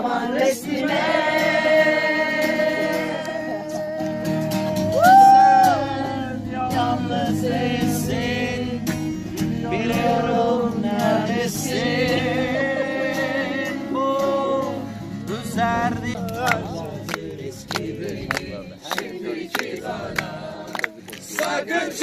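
A group of men and women singing a Turkish song together, with an acoustic guitar strummed along.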